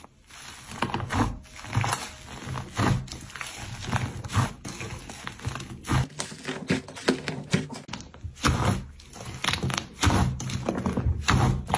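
Slime being handled and squished by hand, giving an irregular run of sticky clicks, pops and soft squelches.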